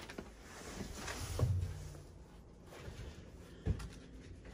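Footsteps and light shuffling through debris on a littered floor, with two dull thumps, one about a second and a half in and one near the end.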